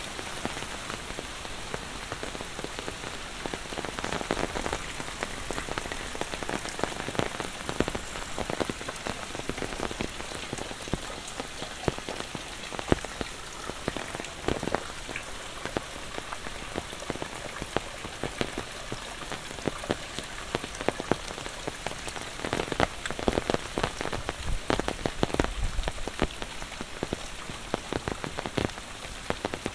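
Monsoon rain falling steadily, a dense patter of drops striking surfaces close by, with a few sharper individual drop hits throughout.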